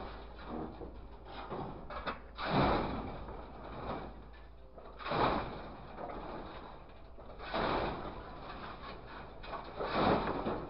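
Scrap metal being loaded by a grapple truck's hydraulic grab: bursts of scraping, clattering metal about every two and a half seconds, four times.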